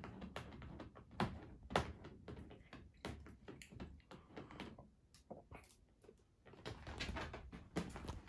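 A cat's claws scratching at and catching on a vinyl punching bag: a run of irregular scrapes and taps, with a few louder knocks as the cat climbs up the bag.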